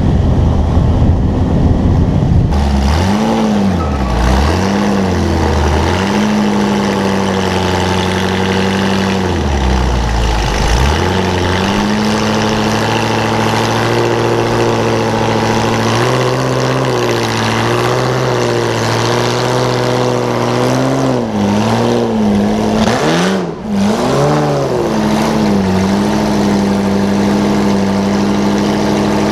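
Off-road truck engine revving up and down over and over, its pitch rising and falling, then holding steady near the end.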